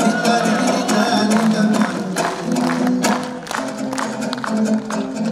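Kazakh dombra strummed in a quick, even rhythm: the instrumental interlude between an akyn's sung verses.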